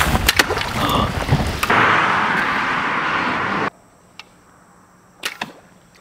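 Slingshot fishing rig shooting a line-tethered dart: sharp clicks and snaps, then about two seconds of rushing noise that cuts off abruptly. A few more clicks come near the end.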